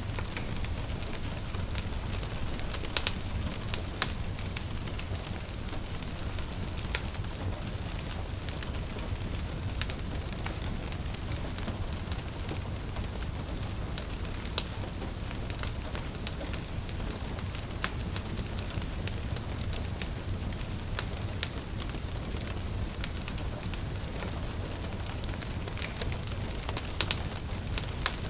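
Wood fire crackling, with scattered sharp pops, a few louder than the rest, over a steady low rumble of flames, mixed with gentle rain falling on a window.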